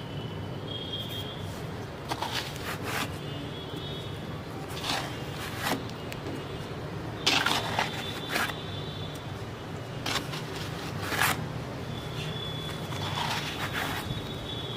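A hand scooping and scraping dry, crumbly sandy soil out of a plastic bucket, in a series of short rough scrapes every second or two.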